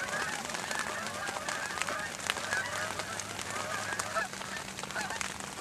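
A flock of geese honking, many short calls overlapping one another.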